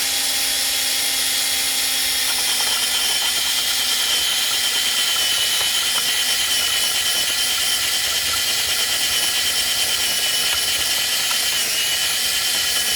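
DeWALT 18-volt cordless drill running continuously at a steady speed with a 1.5-inch bit, a loud, even motor whine. A lower tone in the sound fades out about two seconds in.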